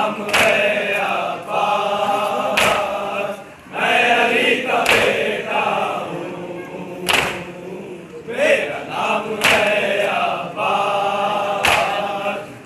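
A group of men chanting a nauha in unison, a Shia lament sung during the mourning ritual of matam. Sharp chest-beating strikes land together about every two seconds, keeping time with the chant.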